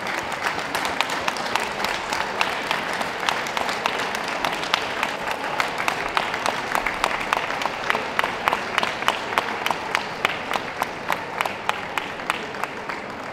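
Audience applauding ringside: a dense patter of many clapping hands, with single sharp claps standing out more clearly in the second half and the clapping thinning near the end.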